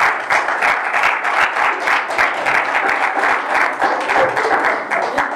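Congregation applauding: many hands clapping in a dense, irregular patter.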